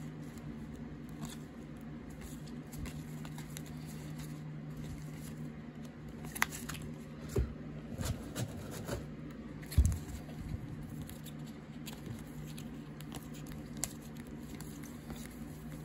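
Trading cards being handled and flipped through by hand, with soft rustles and light clicks of cards and clear plastic sleeves. A few sharper taps and knocks come between the middle and about two-thirds of the way in, over a steady low hum.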